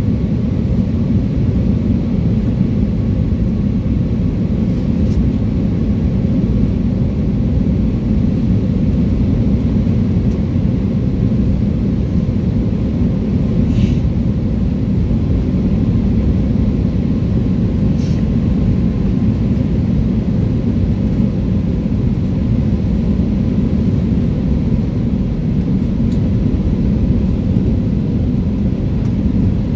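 Steady low rumble of engine and airflow noise inside a jet airliner's cabin during its descent on approach to landing, with a faint steady hum and two faint ticks around the middle.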